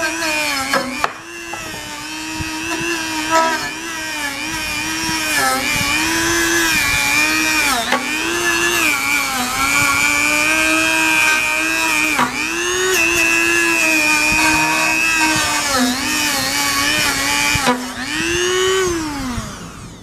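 Dremel rotary tool running with a small wire wheel brush, scrubbing dirt off a copper refrigerant line's joint so it will take solder. Its motor whine sags and recovers again and again as the brush is pressed on, then winds down near the end as it is switched off.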